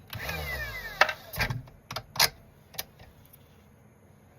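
A foam RC tire spinning on an electric tire truer, slowing with a falling whine over the first second as a sanding board rubs its edge. Then comes a string of sharp clicks and knocks; the loudest are about a second in and a little after two seconds.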